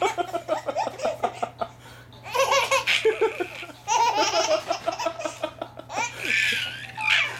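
Baby laughing in repeated bouts of quick, pulsed belly laughs, about four bouts broken by short pauses.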